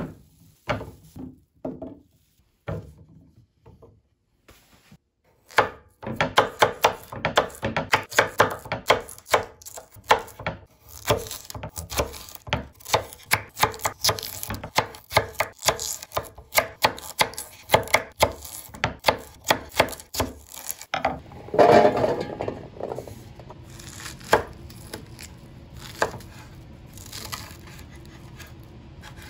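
Kitchen knife cutting potatoes and then an onion on a wooden cutting board. A few scattered knocks at first, then a long run of quick, regular knife strikes against the board, a short louder sound past the middle, and slower, sparser cuts near the end.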